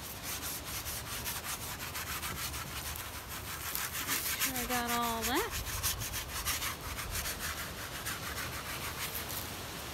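Flat bristle brush stroking varnish back and forth across an oil painting's surface: a quick, rhythmic scratchy rubbing of several strokes a second. About halfway through comes a short voice-like note that rises at its end.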